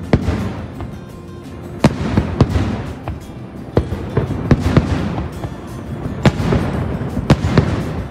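Aerial fireworks bursting, about ten sharp bangs in eight seconds, some in quick pairs, over a steady bed of noise.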